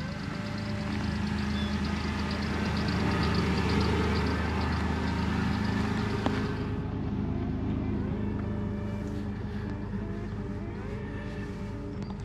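A vehicle engine running steadily with a low hum; about two-thirds of the way through, the sound changes abruptly and loses its high hiss.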